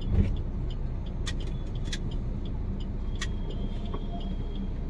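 Maruti Suzuki Swift ZDI's 1.3-litre four-cylinder diesel engine and road noise heard inside the cabin during slow driving, a steady low rumble. A few sharp clicks sound over it.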